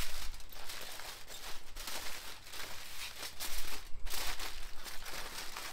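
Aluminium foil crinkling and rustling as it is folded tightly around a rack of pork ribs, irregular, with a louder spell about four seconds in.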